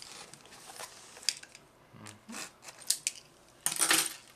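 A trading-card booster box and its plastic wrap being handled and opened: scattered light clicks and scrapes, then a louder rustling burst a little under four seconds in.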